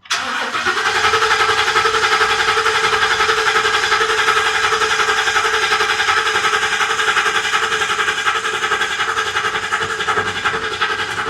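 Starter cranking the Ford 7.3-litre gasoline V8 steadily for about eleven seconds during a scan-tool compression test, with the engine not catching; the cranking stops abruptly. The test shows cylinder 4 a little low on compression, the likely cause of its misfire.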